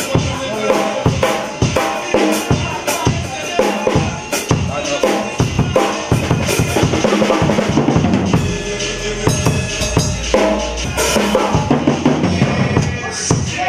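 Acoustic drum kit being played: a busy beat of bass drum, snare and toms with cymbals, growing denser and more continuous in the middle.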